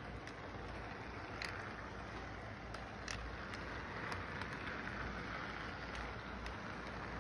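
Toy electric model train running along its track: a steady rolling rumble of the motor and wheels, with scattered sharp clicks at uneven intervals as the wheels pass over track joints.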